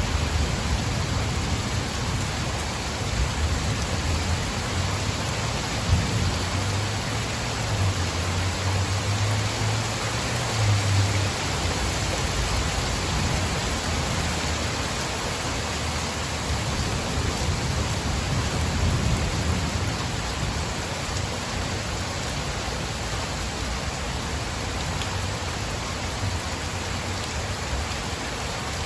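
Steady heavy rain, with a low rumble of thunder about eight to eleven seconds in.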